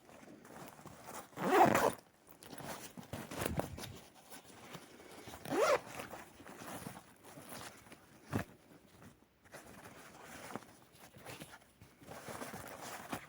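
Zipper on a bag pulled in a few short strokes, one sweeping upward in pitch, with a sharp click and rustling handling noise in between.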